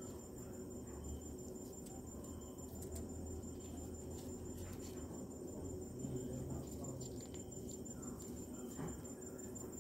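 Quiet room tone with a steady high-pitched tone throughout and a low hum, over which a sheet of paper is handled and folded, giving a few faint soft ticks and rustles.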